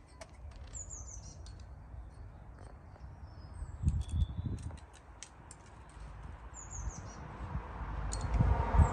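Small birds chirping in short, high, falling notes, repeated several times. Low rumbling thumps come about four seconds in and again near the end, and a broad noise grows louder over the last couple of seconds.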